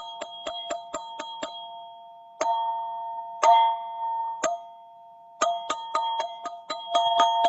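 Black ZenTube struck in a quick run of about five strikes a second, with the same few pitches ringing on under the strokes. The run stops about a second and a half in and the tones ring out. Three single strikes follow about a second apart, then the quick strikes start again near the end.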